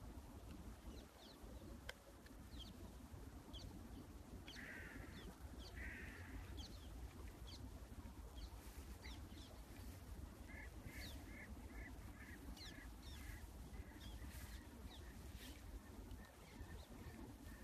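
Wild birds calling faintly in open country: scattered short high chirps, two harsh calls about five and six seconds in, and from about ten seconds a run of about ten quick repeated notes, some two or three a second. A low steady rumble lies underneath.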